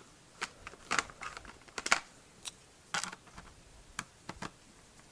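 Irregular sharp plastic clicks and knocks as the laptop's plastic access cover is pried and picked off the underside.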